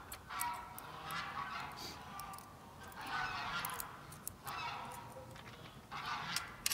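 Geese honking in a series of calls about a second apart, with a few sharp clicks near the end.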